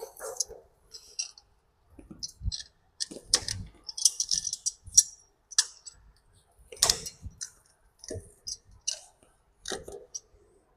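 Scattered metallic clicks and clinks of a cable gland's metal parts and pliers being worked by hand.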